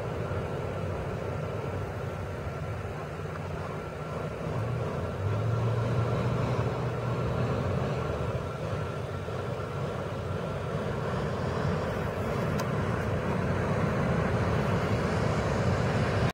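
A steady low motor drone under a hiss of outdoor noise, growing louder about five seconds in.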